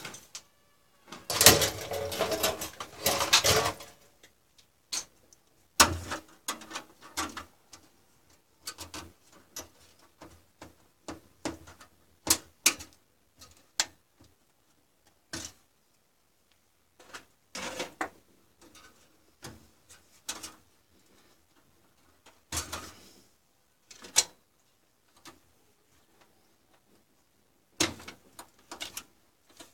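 Handling noises from an open desktop PC case: scattered clicks, knocks and rattles as hands work expansion cards and their metal slot brackets in and out of the motherboard slots. The loudest is a longer burst of rattling and scraping near the start.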